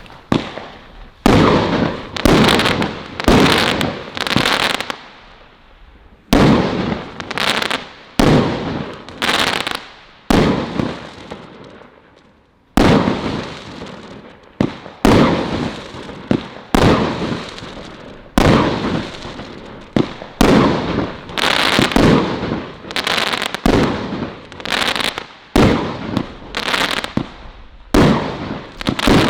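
A Celtic 'Colour Crackles' firework cake firing its shots one after another, roughly one a second. Each shot is a sharp bang followed by crackling that dies away, with short lulls about five and eleven seconds in.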